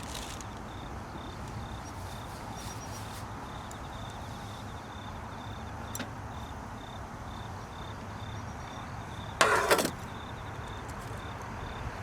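A singing insect chirping steadily, short high chirps about two a second, over a steady low outdoor background noise. About nine and a half seconds in there is a brief loud rustle or clatter.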